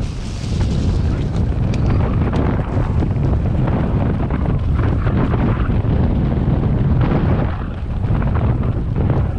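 Wind buffeting the microphone of a mountain bike's mount while the bike descends a rough dirt trail at speed: a loud, steady low rumble from the tyres and the wind, with many small rattles and knocks from the bike going over roots and stones.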